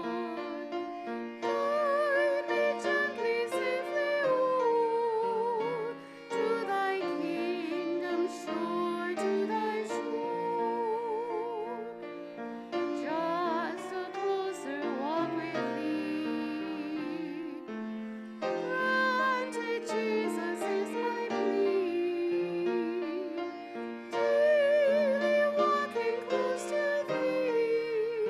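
Hymn singing with keyboard accompaniment: a voice with marked vibrato carries the melody over sustained chords, in phrases about six seconds long.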